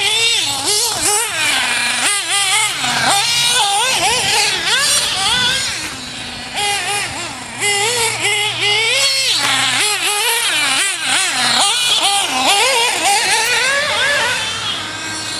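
Go-Tech .21 nitro engine of a Losi 1/8-scale RC buggy, a high-pitched whine revving up and down sharply every second or so as it is throttled over the jumps.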